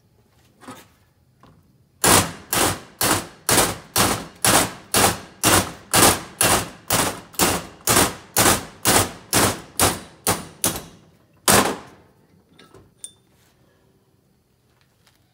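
Ball-pein hammer striking a steel drift, driving a valve guide out of a classic Mini's cast-iron A-series cylinder head: about twenty sharp metallic blows, roughly two a second, then one last blow after a short pause.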